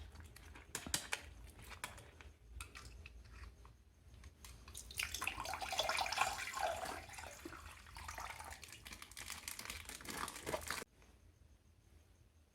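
Plastic bags crinkling with scattered small clicks and rustles, then water splashing and pouring for about five seconds, cutting off suddenly near the end.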